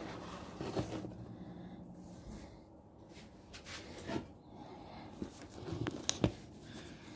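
Light handling noises: scattered soft knocks and rustles over a low room hum, with a sharp click near the end.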